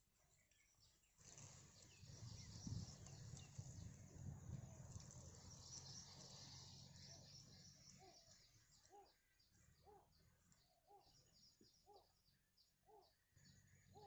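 Faint rustling of dry grass and reeds as an adult bittern pushes in to its nest, then short soft calls repeating about once a second, over a steady high insect-like chatter.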